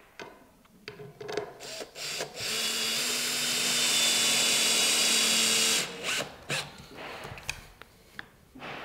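Cordless drill-driver running steadily for about three and a half seconds, driving a screw through the door frame's head into its leg. Short knocks and clicks of the wooden frame being handled come before and after.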